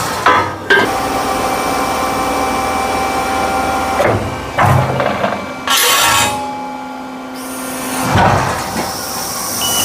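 A workshop machine running steadily while cutting steel stock, with several sharp metal clanks and knocks, the first two within the first second and more around the middle.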